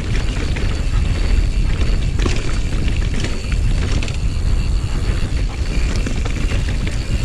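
Mountain bike descending a dirt singletrack: a heavy, steady rumble of wind buffeting the action camera's microphone and tyres rolling over the dirt, with scattered sharp clicks and knocks of the bike rattling over bumps.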